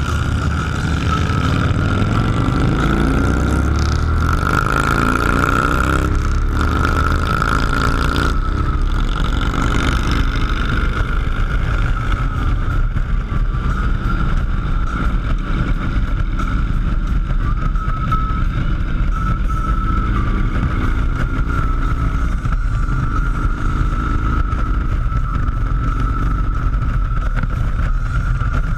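Motor vehicle running continuously, its engine pitch rising over the first eight seconds or so, over steady rumbling road and engine noise, with a thin steady whistle-like tone throughout.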